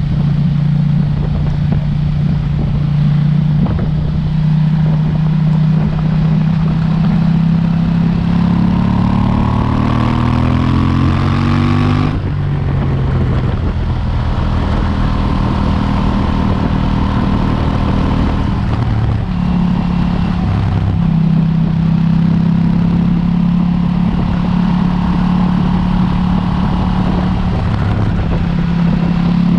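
KTM 790 Duke's parallel-twin engine with stock exhaust, ridden at steady revs. About eight seconds in the revs climb for several seconds, then drop off suddenly and settle steady again, with a brief dip near twenty seconds.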